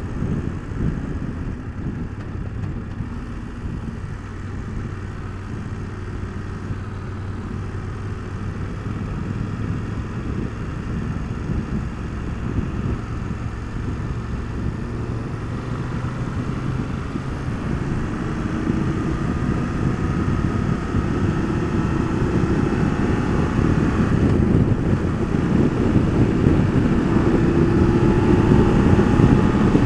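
BMW F850GS Adventure's parallel-twin engine under way with wind rush, easing off as the bike slows, then pulling harder with the engine note rising and getting louder through the second half as it accelerates.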